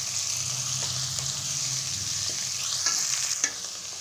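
Chopped onions sizzling as they sauté in hot oil in a kadai, stirred with a wooden spatula that scrapes and taps against the pan several times. The sizzle eases slightly near the end.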